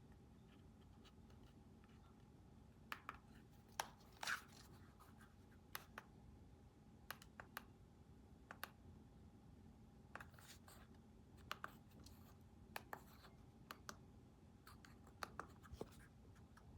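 Small keys of a handheld mini Bluetooth keyboard being pressed: faint, irregular clicks with light scratching, over near silence.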